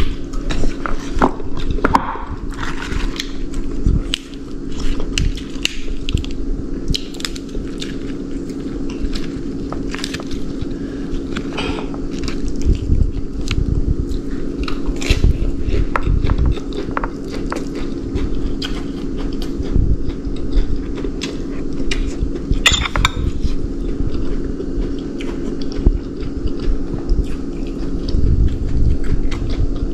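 Close-miked eating: chewing and biting food, with many short clicks of a fork against a plate. A steady low hum runs underneath.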